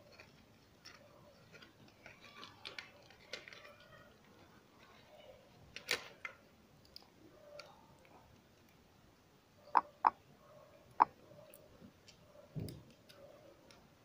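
Faint handling sounds from an opened DualShock 4 controller: small plastic clicks and taps as a flex cable is worked into place by hand, with three sharp clicks about ten seconds in and a soft thump near the end.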